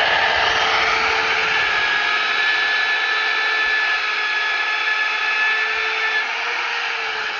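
Magnetic drill press running steadily, its motor whining as a twist bit bores into a steel beam.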